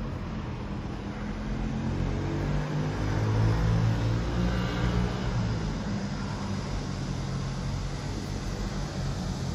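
Road traffic: a vehicle engine running with a low hum over traffic noise, swelling to its loudest a few seconds in and then easing off.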